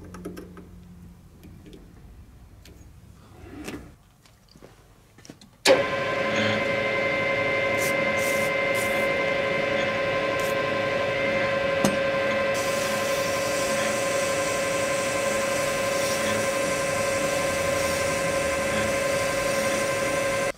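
Light clicks as an aluminium wheel hub is set into a metal lathe's chuck, then the lathe starts suddenly about six seconds in and runs at steady speed with a constant whine. From about halfway, a fine hiss joins it as abrasive paper is held against the spinning hub to wet-sand out its oxidation.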